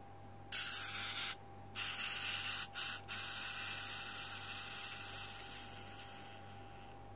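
Tiny wind-up capsule Plarail Thomas locomotive's spring motor and gears whirring as its wheels spin freely off the track. The whir stops briefly three times, then runs down and fades out.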